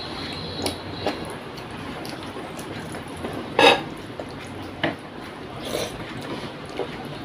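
Eating rice by hand: fingers squishing and mixing rice with potato chochhori on a plate, with wet mouth and chewing sounds and scattered soft clicks. One louder sharp click a little past halfway.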